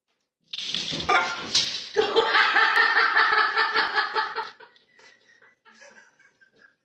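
A person laughing loudly in pulses for a couple of seconds. Just before it come a short burst of scuffling noise and a sharp knock.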